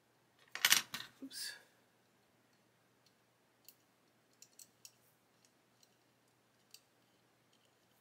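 Hands handling and fitting small plastic model-kit engine parts: two louder handling noises in the first two seconds, then a scatter of light clicks of metal tweezers and plastic pieces against each other.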